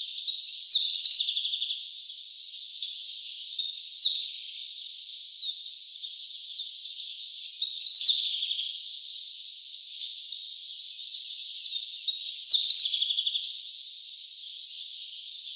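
Rainforest crickets and insects keep up a steady, high-pitched trill, and a bird gives a call that slides down in pitch four times, about every four seconds. The recording has no low sounds at all.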